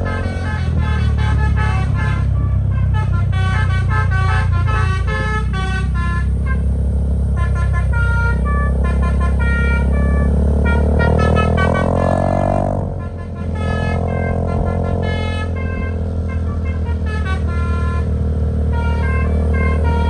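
Bus telolet horn driven by a Basuri controller, playing a fast melody of short, trumpet-like notes over the bus's running engine, with a rising glide a little past the middle.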